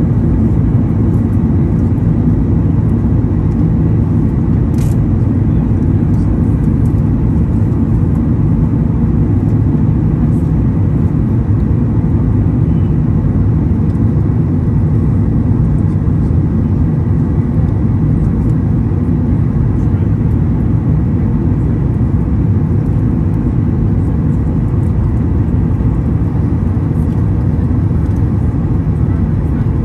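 Steady cabin roar of a Boeing 737 MAX 8 during descent, heard from a window seat beside the wing: its CFM LEAP-1B turbofan and the rush of air over the fuselage. Mostly a deep, even rumble with a faint steady tone above it.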